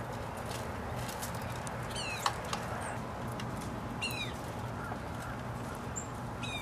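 Short falling bird calls, three of them about two seconds apart, over a steady low hum. Faint ticks and rustles of dry leaves come from an American robin rooting through leaf litter, and one sharp tick just after the first call is the loudest moment.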